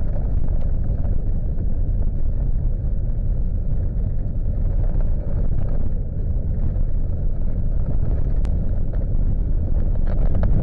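Car driving on a snow-covered road, heard from inside the cabin: a steady low rumble of engine and tyres.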